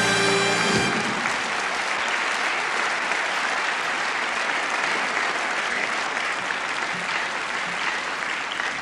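A music chord ends about a second in, and a large audience applauds steadily after it, a dense, even clatter of many hands clapping.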